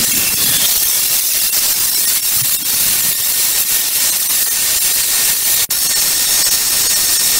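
Belt sander driven by a 7-inch Metabo angle grinder running at full speed, its abrasive belt hissing steadily over a thin motor whine as work is pressed against it. A momentary break comes about three quarters of the way in.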